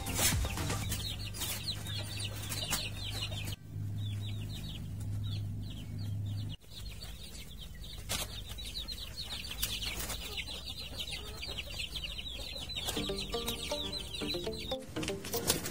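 A flock of young chickens peeping continuously in quick, high, falling chirps while they peck at corn. A low steady hum sits under the first few seconds.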